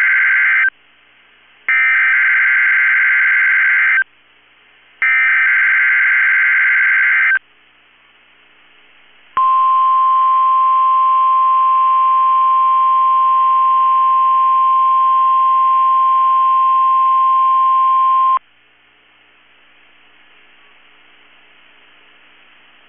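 NOAA Weather Radio weekly test alert. It opens with three bursts of warbling SAME digital header data, the first already under way. After about two seconds' pause comes the steady 1050 Hz warning alarm tone, held for about nine seconds and cut off sharply, leaving faint radio hiss and hum. This is the signal that switches on specially built weather receivers.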